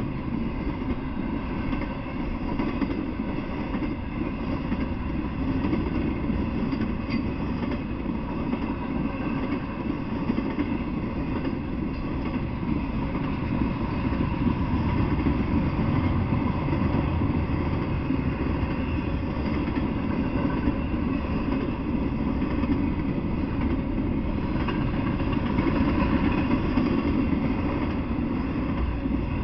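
Intermodal freight train rolling past, a steady rumble of its cars' wheels on the rails that holds at an even level throughout.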